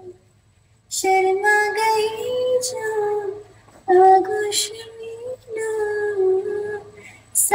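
A woman singing solo into a handheld microphone, unaccompanied, in long held and sliding notes. She comes in about a second in after a brief silence, with short breath breaks between phrases.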